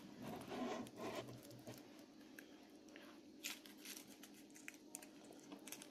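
Faint handling noises: a few light knocks and rustles as a large foil-wrapped chocolate egg is moved about on a table. Otherwise quiet.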